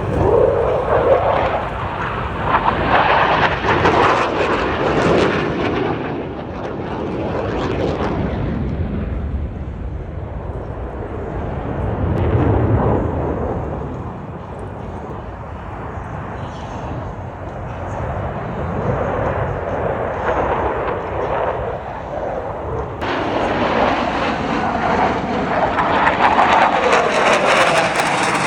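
Blue Angels F/A-18 Super Hornet jets making low passes, a continuous loud jet roar that swells and sweeps in pitch as each aircraft goes by. A fresh, brighter pass comes in sharply near the end.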